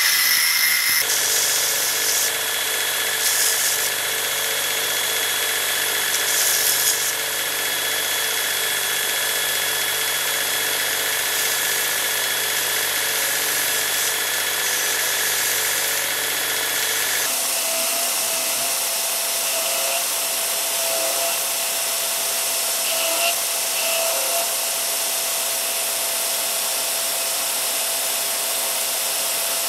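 Angle grinder grinding a metal pommel clamped in a vise, then, about a second in, a belt grinder running steadily with the pommel held against the belt. The grinding sound changes abruptly about two-thirds of the way through, to a different belt.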